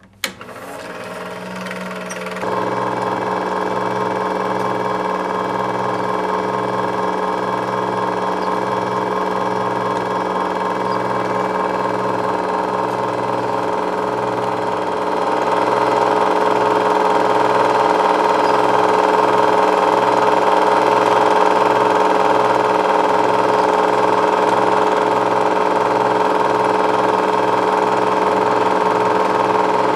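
8 mm film projector running forward: its motor spins up over the first couple of seconds, then a steady mechanical whirr with a low throbbing hum underneath as the film runs through. It gets a little louder about halfway through.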